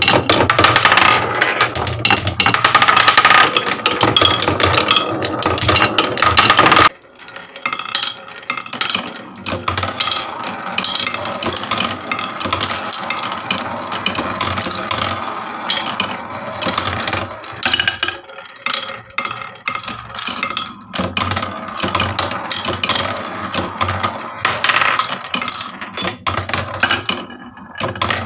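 Many marbles rolling and clattering down HABA wooden marble-run slopes: a dense, loud rattle of clicks for about the first seven seconds, which drops off suddenly into a thinner run of clacks and rattles.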